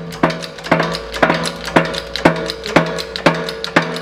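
Background music with a steady drum beat, about two beats a second, over held notes.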